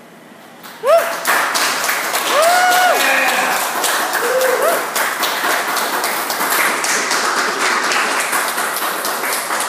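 Audience suddenly breaks into applause about a second in, with several whoops and cheers over the clapping in the first few seconds.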